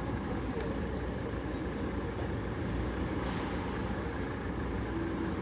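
Steady low rumble of car engines running in the lot below, heard from high up, with faint street noise mixed in.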